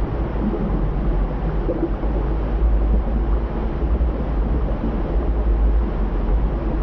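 Volcanic eruption with flowing lava as a sound effect: a steady deep rumble under a dense rushing noise, without pause.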